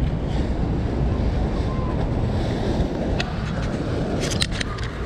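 Wind buffeting the microphone in a steady low rumble, with a motor yacht cruising past on the river. A few sharp clicks come about four seconds in.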